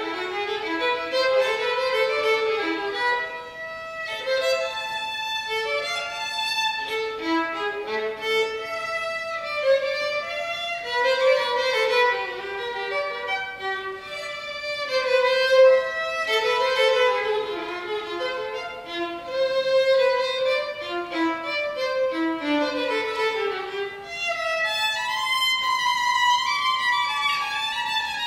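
Violin bowed through a continuous melody of quickly changing notes.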